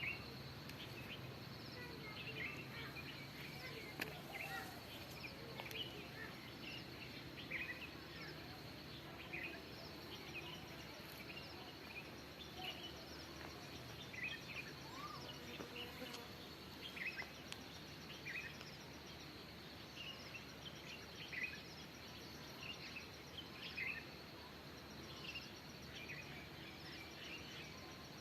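Birds chirping, with short calls scattered every second or so, over a steady high-pitched insect drone and a faint outdoor background hiss.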